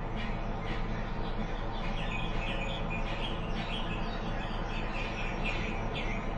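Cartoon alien-forest ambience: a steady low drone under a busy run of short, high bird-like chirps, several a second.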